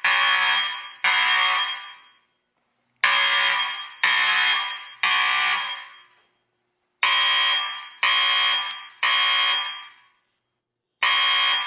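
Fire alarm sounding in the temporal-three evacuation pattern: three ringing strikes about a second apart, then a pause of about two seconds, repeating. Each strike starts sharply and fades over about a second.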